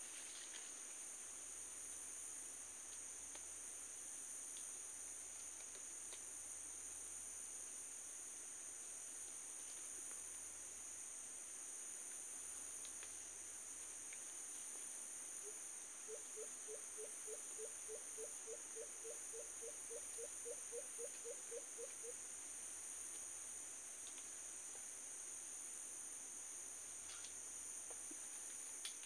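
Steady high-pitched drone of an insect chorus. Through the middle, a run of about twenty short low notes, roughly three a second, lasting some six seconds.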